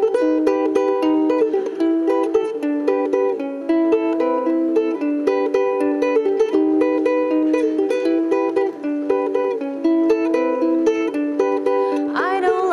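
Solo ukulele played with quick, evenly picked notes in a repeating melodic pattern. A woman's singing voice comes back in just before the end.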